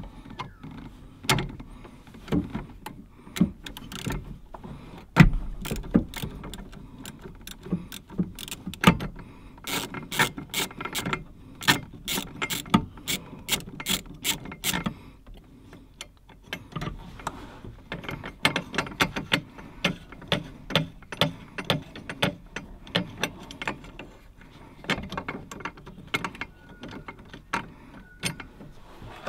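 Socket ratchet clicking in quick irregular runs of strokes, densest about ten to fifteen seconds in, as the ABS mounting nut by the brake master cylinder is worked loose.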